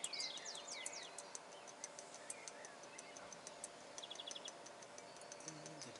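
Birds chirping, with a few quick falling calls about the first second and a short fast trill about four seconds in, over a run of light, irregular ticks.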